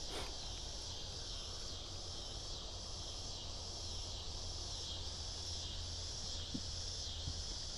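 Steady, high-pitched chorus of insects such as crickets, over a low steady rumble.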